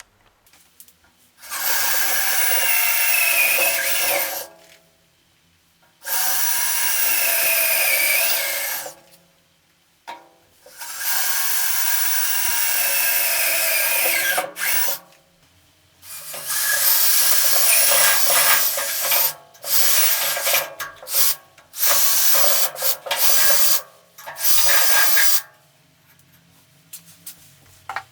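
Electric drill running in repeated bursts under load, its motor pitch wavering: three runs of a few seconds each, then a longer run and a series of short stop-start bursts.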